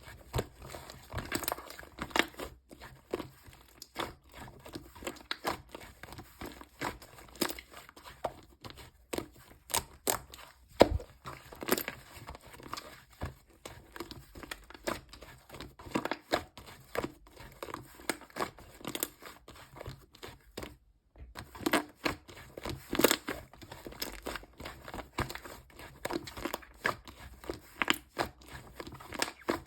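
Pink whipped-cream clay slime being squished, stretched and folded by hand. It gives dense, irregular crackles and pops of trapped air, with a brief pause about two thirds of the way through.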